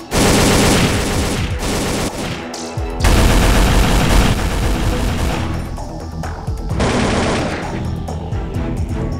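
Sustained rapid gunfire, like machine guns firing, over music. It starts abruptly, and a second, heavier stretch with a deep low end begins about three seconds in.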